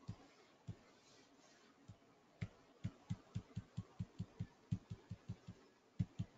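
Faint computer mouse clicks: a few single clicks, then from about two and a half seconds in an even run of about four clicks a second, as objects are selected one after another with the Control key held.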